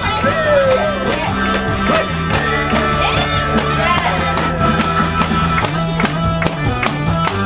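Karaoke music with a steady beat and bass line, played loud over the party's sound system, with a woman's voice on the microphone coming and going over it.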